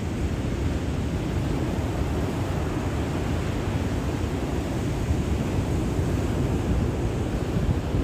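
Turbulent ocean surf: waves crashing in a continuous rumble, growing a little louder partway through.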